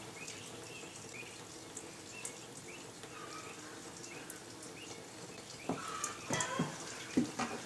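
Thin stream of water-laden gasoline trickling from the drained fuel tank of an International Harvester 300 Utility tractor into a drain pan, a faint steady splashing. The fuel is milky with water, about 30% by the owner's sample. A few light knocks come near the end.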